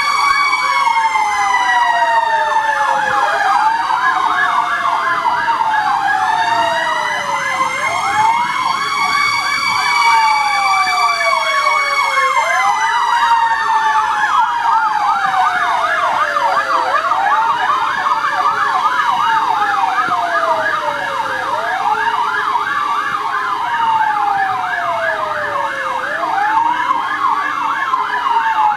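Fire truck sirens sounding together. A wail rises quickly and falls slowly, about every four and a half seconds, over a fast warbling yelp that runs on without a break.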